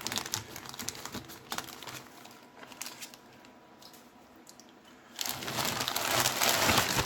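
Plastic sealed coin bag crinkling as it is cut open and handled: scattered crackles at first, a quieter stretch, then loud, continuous crinkling from about five seconds in.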